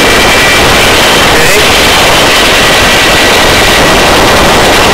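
Helicopter in a hover during a hoist rescue: loud, steady rotor and turbine noise with a thin, steady high whine over it.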